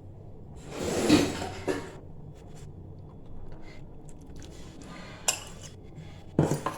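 Cooking pots and a ladle being handled: a louder scraping, rustling stretch about a second in, then scattered clinks and knocks of metal vessels, two of them sharper near the end.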